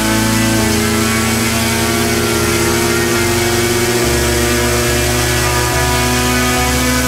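Turnigy G-46 brushless outrunner motor spinning a 12x10 propeller on a thrust stand, running steadily under load at around 20 amps. Its whine and propeller hum shift in pitch in steps a few times, about half a second in and again around three and four seconds in.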